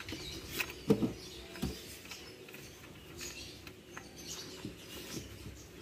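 A few clicks and knocks as hands work a car engine's air intake pipe loose, the loudest about a second in, with birds chirping faintly in the background.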